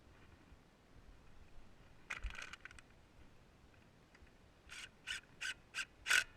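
A dull knock with a brief rustle, then five short, quick scraping strokes about a third of a second apart, the last the loudest.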